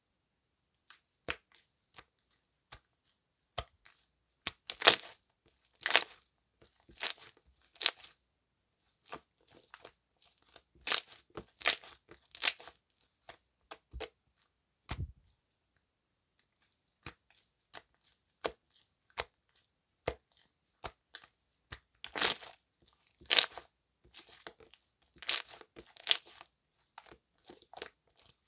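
Slime with foam mixed into it being squeezed and pressed by hand, giving irregular sharp crackles and pops, some single and some in quick clusters.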